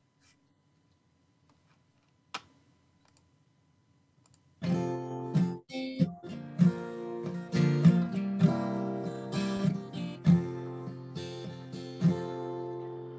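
About four and a half seconds of near silence, then the instrumental introduction to a hymn begins: sustained chords with a sharp attack roughly twice a second.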